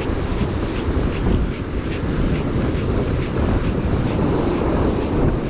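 Steady wind rumble buffeting the microphone, over breaking surf, with faint light ticks about three a second.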